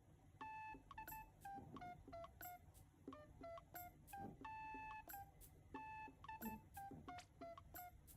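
Quiet background music: a simple tune of short, plinky electronic notes, each phrase stepping down in pitch and repeating.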